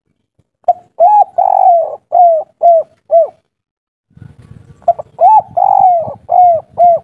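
Spotted dove (derkuku) cooing its 'kuk 3' song twice: each phrase is a short lead-in note, a coo, one long drawn-out coo, then three shorter clipped coos.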